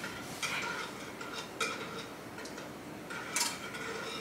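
Wire whisk stirring liquid pudding mixture in a stainless steel bowl, with a soft continuous scrape and a few light metallic clinks as the wires strike the bowl.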